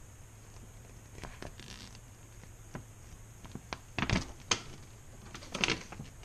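A folded paper instruction leaflet being handled and folded up: rustling and crinkling paper with a few sharp crackles, loudest a little after four seconds in and again at about five and a half seconds.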